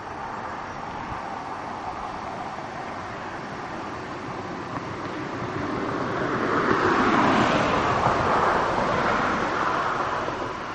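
A vehicle passing by over a steady background of traffic hum. It swells to its loudest a little past the middle, then fades again.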